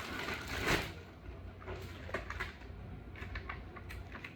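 Plastic food packaging rustling loudly for about half a second, then a scatter of light clicks and taps as packages are handled and moved.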